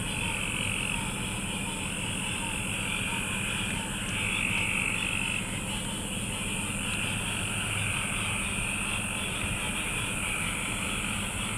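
Night chorus of frogs calling in waves that rise and fade every few seconds, over a steady high drone and a steady low hum.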